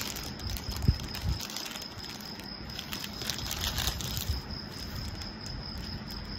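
Clear plastic packaging crinkling as hair clips are handled and taken out, with a couple of light knocks about a second in. A faint steady high whine sits underneath.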